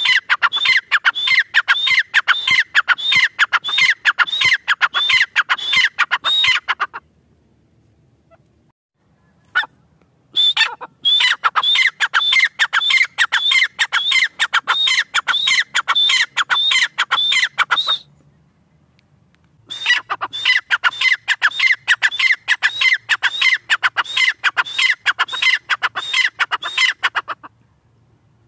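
Grey francolin (teetar) calling, a female by the uploader's account: fast runs of repeated high, ringing notes in three long bouts of about seven seconds each, with short pauses between them.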